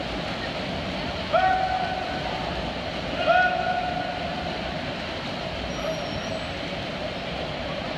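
Steady crowd noise in an indoor pool, with two long, held cheering shouts from the stands, each about a second and steady in pitch, about two seconds apart.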